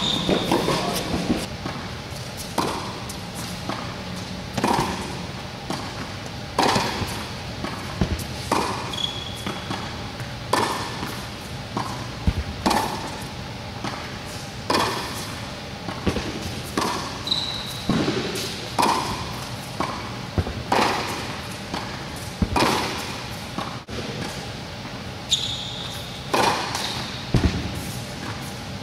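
Tennis rally on an indoor court: sharp racket strikes and ball bounces every second or two, echoing in the large hall, with a few short high squeaks of shoes on the court.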